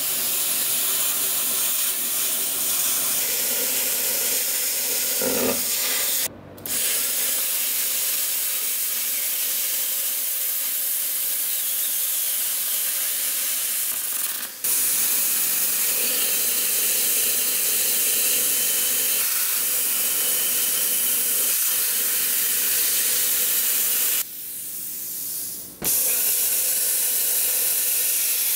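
Small air-fed plasma cutter cutting through a car body's sheet steel, a steady hissing rush. The cut stops briefly about six seconds in and again for over a second near the end, when only a quieter hiss is left.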